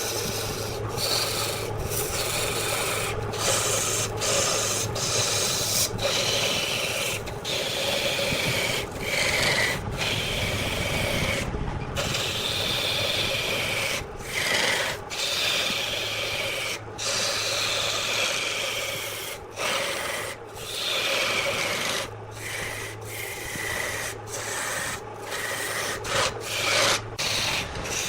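Wood lathe running with a turning tool cutting and scraping the spinning wood: a rough, rasping hiss over the steady hum of the lathe motor. The cutting is broken by many brief pauses, where the tool lifts off between passes.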